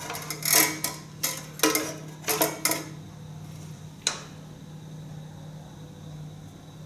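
Loose metal parts of a tractor's PTO clutch assembly clinking and clattering as they are handled, several clanks in the first three seconds and a single sharp click about four seconds in. A steady low hum runs underneath.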